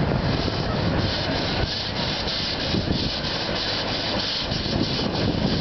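Puffing Billy's narrow-gauge steam tank locomotive working across a timber trestle, its exhaust chuffing in a quick, even beat over the rumble of the train.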